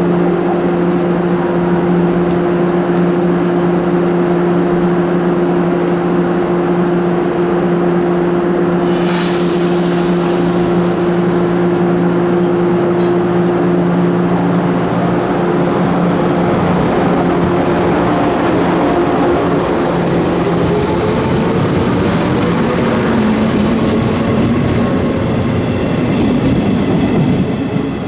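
JR 415 series electric multiple unit pulling out of a station. It holds a steady electrical hum while standing, with a sudden hiss of air about nine seconds in. From about halfway through, the traction motors' whine rises in pitch along with wheel noise as the train gathers speed and passes close near the end.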